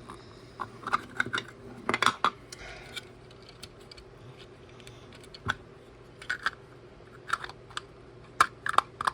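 Plastic building bricks clicking and tapping as off-brand LEGO-compatible pieces are handled and pressed together: irregular sharp clicks in small clusters, thickest about two seconds in and again in the last few seconds.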